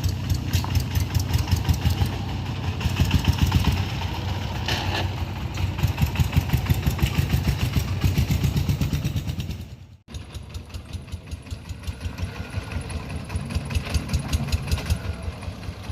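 Engine of a three-wheeled farm vehicle running with a steady, rapid pulsing beat. The sound breaks off abruptly about ten seconds in, then picks up again slightly quieter.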